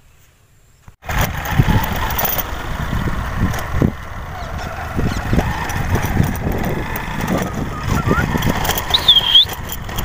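Motorcycle running along a rough brick-paved track, with wind buffeting the microphone. The noise comes in suddenly about a second in and then holds steady.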